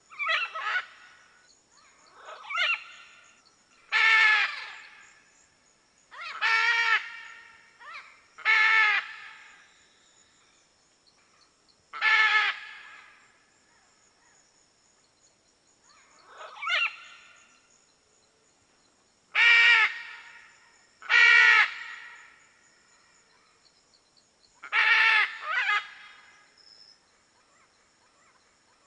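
Red-and-green macaw (Ara chloropterus) squawking: about ten single calls, each under a second, spaced one to four seconds apart, over a faint steady high-pitched tone in the background.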